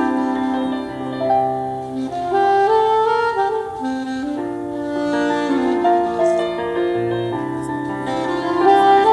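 Saxophone playing a slow melody of held notes, accompanied by piano with a sustained low bass line.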